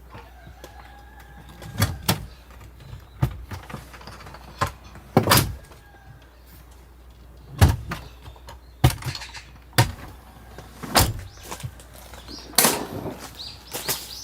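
Irregular knocks, clunks and scrapes, about a dozen of them spaced roughly a second apart, the loudest around the middle and near the end.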